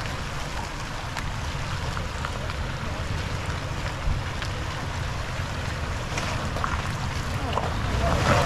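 Wind buffeting the microphone in a steady low rumble, over a Toyota 4Runner crawling up a muddy, rocky trail, with scattered light clicks and a single louder knock about four seconds in.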